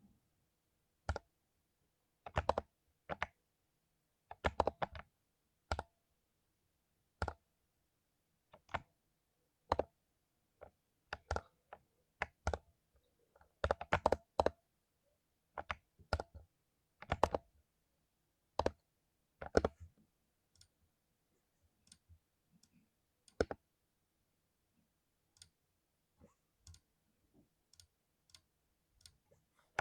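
Mechanical keyboard with lubed Cherry MX Silver linear switches being typed on: keystrokes in single clicks and short runs with irregular pauses between them, growing fainter and sparser in the last third.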